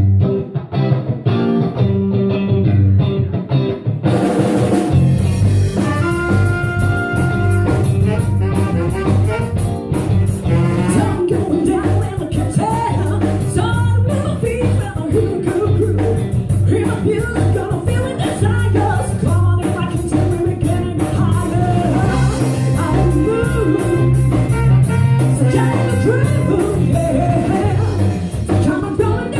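Live rock/soul band playing: bass and drums from the start, with the full drum kit and cymbals coming in about four seconds in, and a voice singing over the band.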